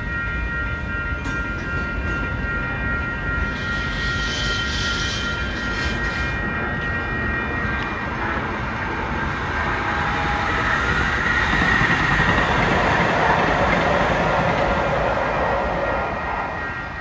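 Union Pacific freight train rolling slowly past, a steady rumble with thin high ringing tones over the first half, swelling louder from about nine seconds in and easing off near the end.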